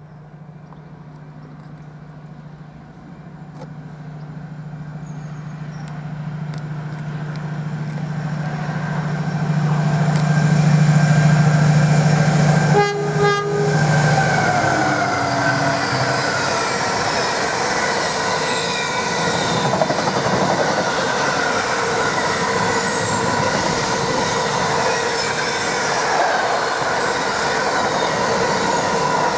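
Diesel-hauled freight train approaching at speed, its engine hum growing louder, with a short horn blast about 13 seconds in that drops in pitch as the locomotive passes. The wagons then roll past with a steady rush of wheel and rail noise and some wheel squeal.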